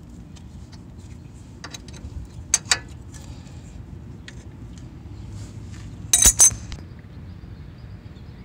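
Adjustable wrench clinking against the upper ball joint nut and steel suspension parts as it is worked to loosen the nut: light ticks, two sharp clinks about two and a half seconds in, and a louder cluster of clinks around six seconds in.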